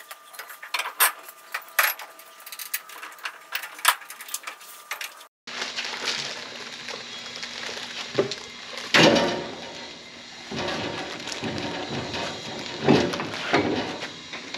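Metal tools and parts clinking and knocking during brake and wheel assembly on a car. There are many sharp clicks at first, a short break about five seconds in, then a steady low hum with scattered knocks and two louder, longer noises about nine and thirteen seconds in.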